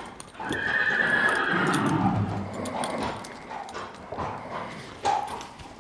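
A horse whinnies once, a long call starting about half a second in that drops in pitch toward its end.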